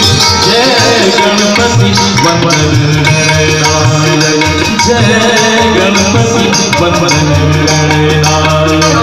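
Loud Indian music: a tabla-style hand-drum rhythm under a sustained melody.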